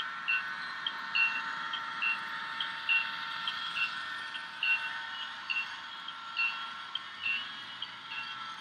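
Bell of a sound-equipped HO scale diesel locomotive ringing over and over, about once a second with lighter strikes between, over a steady hum from the running trains.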